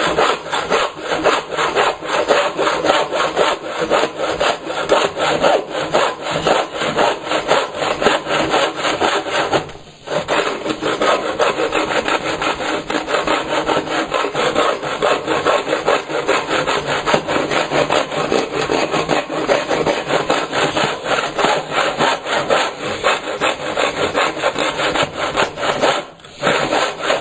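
Bahco 244 handsaw cutting through skirting board in quick, steady back-and-forth strokes, pausing briefly twice. The saw is blunt, so it drifts off the line and has to be forced straight.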